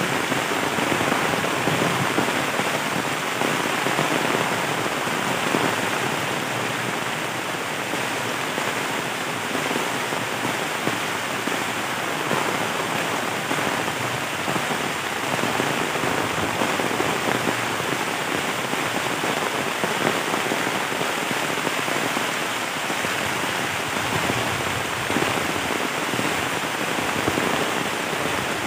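Steady heavy rain pouring onto bamboo leaves and the leaf-littered ground.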